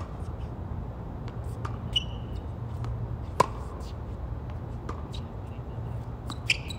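Tennis rally on a hard court: sharp pops of rackets striking the ball and the ball bouncing, spaced a second or two apart, the loudest about three and a half seconds in, over a steady low hum.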